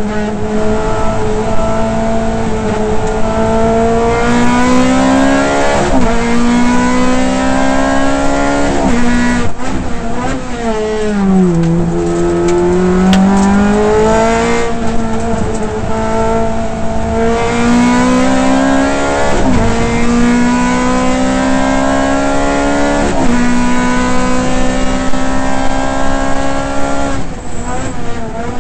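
Ferrari F430 GT race car's V8 engine heard from inside the cockpit under hard acceleration, its pitch climbing through the gears and dropping sharply at each of several quick upshifts. About ten seconds in the revs fall away as the car slows for a corner, then the engine pulls hard again through more upshifts.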